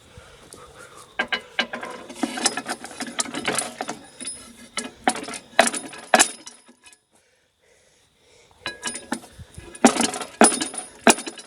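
Metal clanking and knocking as a pipe is levered against the jammed hammers of a wood chipper, in two spells of sharp knocks with a near-silent pause of about two seconds between them. The hammers are stuck hard and do not turn.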